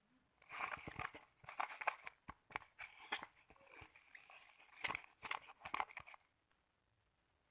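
White-glue slime being stirred, giving a run of sticky, crackling clicks and squelches, until it stops about six seconds in.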